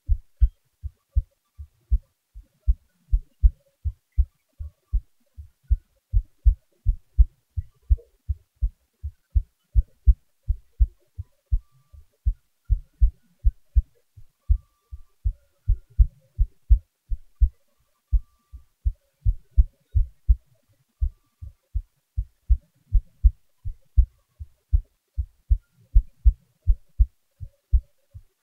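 A human heartbeat, amplified: steady paired lub-dub thumps at about one beat a second, at a calm resting rate.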